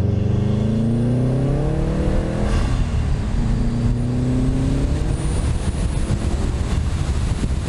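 Subaru WRX STI's turbocharged 2.5-litre flat-four, fitted with a Cobb SF intake and Accessport tune, accelerating hard and loud. The engine pitch climbs, breaks at a gear change about two and a half seconds in, and climbs again through the next gear. Around five seconds in it eases off, leaving wind and road noise with a faint high whistle.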